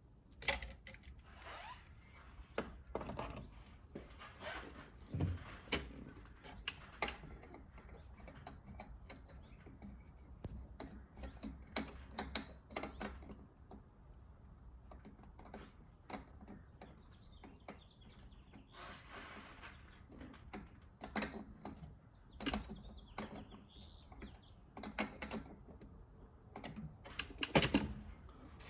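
Irregular clicks, taps and knocks of hands and tools handling plastic and metal engine-bay parts while a turbo inlet pipe is being fitted. There is a short rustle partway through, and the sharpest knocks come right at the start and near the end.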